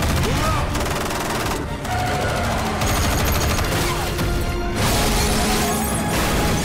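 Rapid bursts of automatic gunfire mixed with background film-score music, loud throughout.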